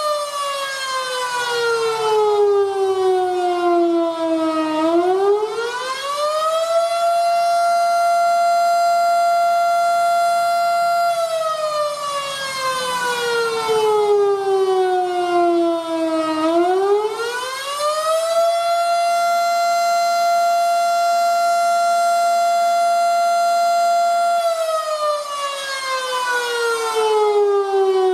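Outdoor tornado warning siren sounding a wail: a steady high tone holds for about five seconds, slides slowly down for about five seconds, then climbs quickly back up. The cycle repeats about every eleven seconds and is falling again near the end.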